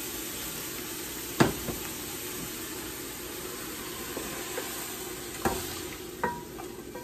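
Mushrooms sizzling in a hot stainless steel frying pan just taken off high heat, with the scrape of a wooden spoon and a few sharp knocks (one about a second and a half in, two near the end) as they are pushed out of the pan into a soup pot.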